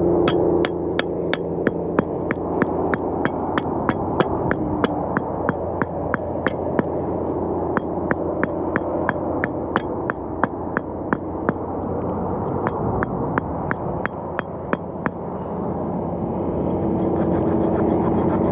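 Quick, evenly spaced knocks of a metal tool striking a chunk of wood, about three a second, stopping about fifteen seconds in. Under them is a steady low rumble.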